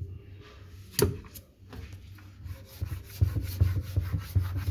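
Small toothbrush scrubbing grime off part of a washing machine in quick back-and-forth strokes, stronger in the second half. A single sharp click about a second in.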